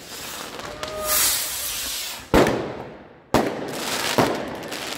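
Fireworks going off overhead: a crackling hiss about a second in, then three sharp bangs about a second apart, each trailing off.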